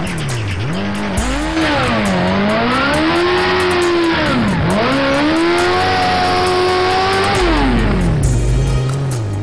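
Sport motorcycle engine revving up and down over and over during a rear-tyre burnout, held high through the middle and dropping near the end, with the spinning rear tyre squealing. Background music with a steady bass runs underneath.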